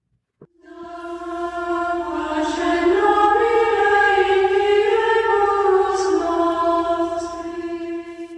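Choral music: voices sing a slow melody in long held notes. It fades in about a second in and ends at the close.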